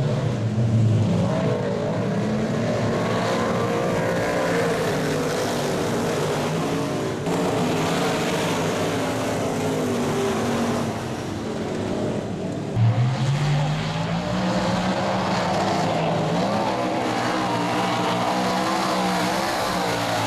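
V8 dirt modified race cars running on a dirt oval, several engines at once, their notes rising and falling as they pass. About two-thirds of the way through, a louder engine close by revs up sharply in pitch.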